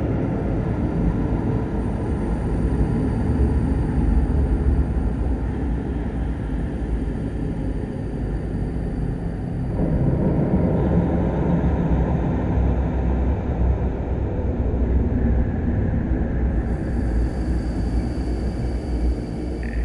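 Dark ambient music: a dense, low rumbling drone. Thin, high, steady tones are layered in one after another, about two seconds in, about halfway through, and near the end.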